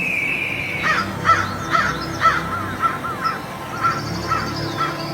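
Crow cawing, a run of about eight short calls roughly half a second apart, over faint background music.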